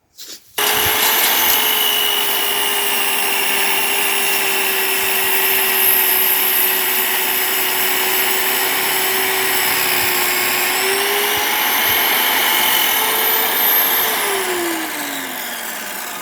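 Electric power saw starts suddenly and runs at a steady, high-pitched whine while crosscutting a heavy timber beam into shorter lengths. About 14 seconds in it is switched off and its pitch falls as the blade winds down.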